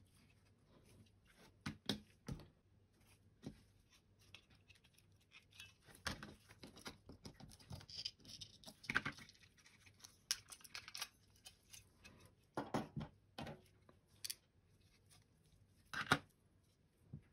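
Scattered small plastic clicks, taps and scrapes from a Logitech M185 mouse's opened shell and internals being handled and worked with tweezers, with a few louder clicks spread through.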